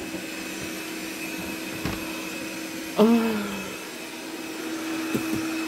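Robot vacuum cleaner running with a steady whirring hum. A short falling vocal sound from a person cuts in about three seconds in.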